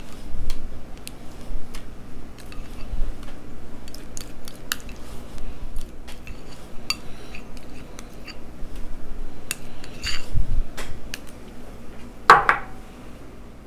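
A spoon clinking and tapping against a bowl and a metal baking pan as sour cream is dolloped onto nachos: scattered light clicks, with one louder ringing clink near the end.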